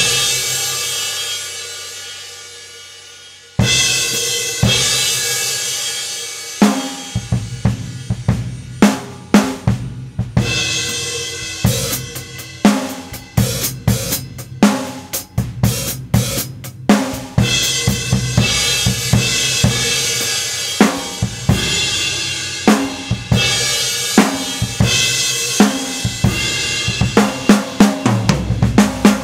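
Drum kit being played to try out a Zildjian S Family 20-inch medium thin crash cymbal. A crash rings out and fades, is struck again about three and a half seconds in, then a beat on snare and bass drum with quick fills and repeated cymbal crashes takes over.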